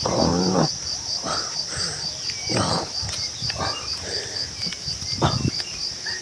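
Insects trilling steadily in a fast pulsing rhythm, with several short louder noises over them, the first carrying a low hum-like tone.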